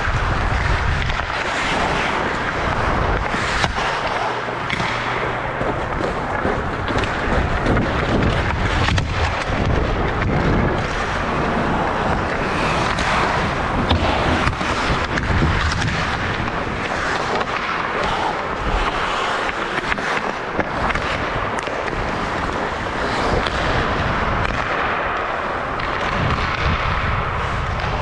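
Hockey play: skates scraping, sticks clacking and a puck being hit, a steady wash of noise broken by many sharp knocks throughout.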